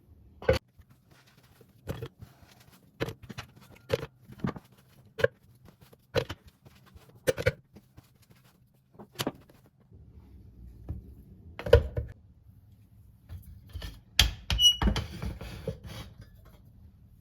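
Light knocks and clatters of household items being picked up and set down during kitchen cleaning, about one a second, then a busier run of clattering near the end.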